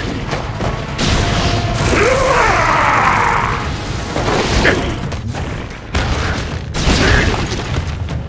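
Animated fight sound effects: heavy hits and booms, with sudden loud impacts about a second in and again near six seconds, and a crash of a tiled wall being smashed in.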